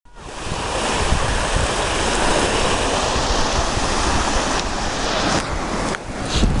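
Sea surf washing continuously, with wind buffeting the microphone in low rumbling gusts; the wash dips briefly about six seconds in.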